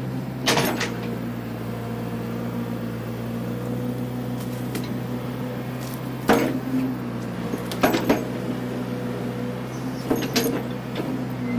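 John Deere 410 backhoe's engine running at a steady speed, with several sharp clanks and knocks from the machine: one about half a second in, then around six, eight and ten seconds in.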